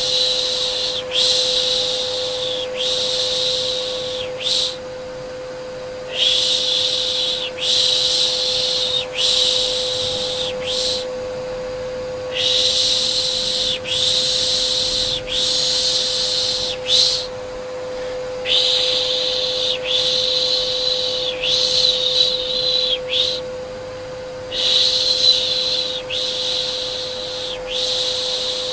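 Rhythmic soothing shushes ('shh, shh'), about one a second in runs of four or five with brief pauses between runs, over a steady vacuum-cleaner whine that holds one pitch.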